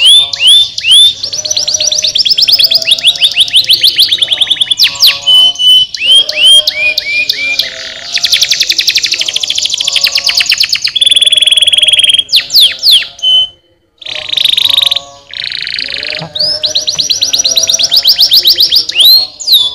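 Domestic canary singing: long rapid trills alternating with runs of repeated downward-sweeping whistled notes. There is a short break about fourteen seconds in.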